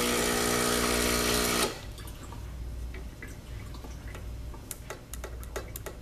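Lavazza Espresso Point espresso machine's pump buzzing with water running as the water button dispenses, cutting off suddenly under two seconds in. Then a few light clicks as the front-panel buttons are pressed, one of which gets no response from the faulty button board.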